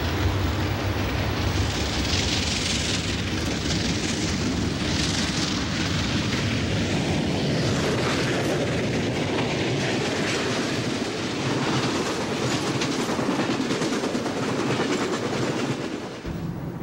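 Norfolk & Western Class J 611, a 4-8-4 steam locomotive, passing close by at speed with an excursion train, its exhaust and running gear loud, then the passenger cars rolling past with wheels clicking over the rail joints. The sound drops off abruptly shortly before the end.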